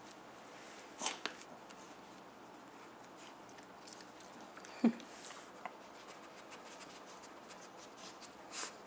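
A small dog sniffing and nosing at a stuffed knee-high-sock toy on carpet, faint, with two sharp sniffs, one about a second in and one near the end, and light scratching. A brief squeak falling in pitch comes about five seconds in.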